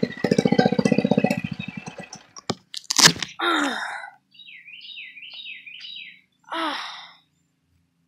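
A boy cries out in pain twice, a falling wail about three and a half seconds in and a shorter one near seven seconds, from what he takes for a bee sting on his ear. Before the first cry there is a fast buzzing rhythm, then a couple of sharp knocks and a loud bang. A bird chirps repeatedly between the cries.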